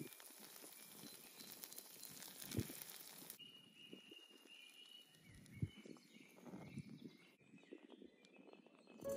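Faint sizzling and crackling from a miniature steel wok of sauce cooking over a tiny wood fire, stopping abruptly after a few seconds. After that, birds chirp softly and there are a few light knocks.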